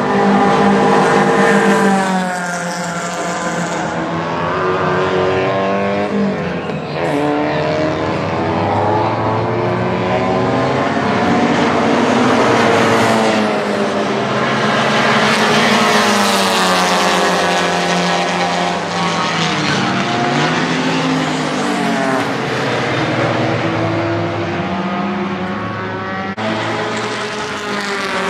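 Several Alfa Romeo and Fiat saloon race cars at racing speed, their engines overlapping as they rev up and fall away in pitch while passing and changing gear. The loudest passes come near the start and about halfway through.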